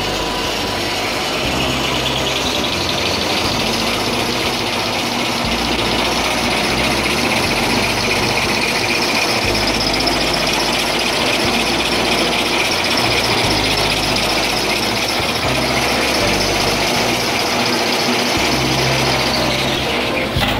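Tissue paper glue lamination machine running: steady mechanical noise from its rollers and paper web, with a high hiss and squeal that strengthens about two seconds in and eases near the end.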